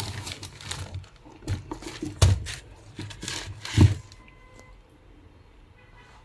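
Handling noises: a run of short rustles and a few dull knocks during the first four seconds, the loudest about two and four seconds in, then quiet.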